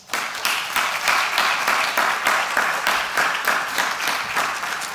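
Audience applauding: many hands clapping together, starting at once and beginning to die down near the end.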